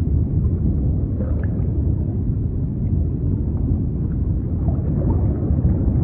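Sea noise used as white noise: a steady, deep rumbling wash of water, with a few faint higher splashes.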